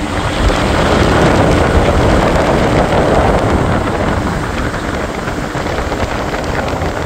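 Steady rushing air and machinery noise inside a running make-up air unit, its blowers moving air past the turning heat wheel; it swells a little a second or two in, then eases.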